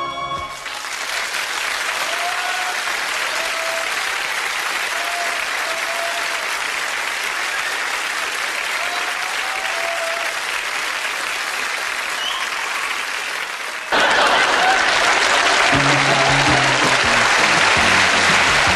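A studio audience applauding in steady, dense clapping. About fourteen seconds in the clapping gets suddenly louder, and a couple of seconds later music comes in underneath it.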